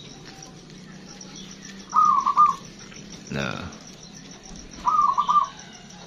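Zebra dove (perkutut) cooing twice, each call a quick run of three or four short hooked notes, about two seconds in and again near five seconds. A brief, louder, lower call sounds between them.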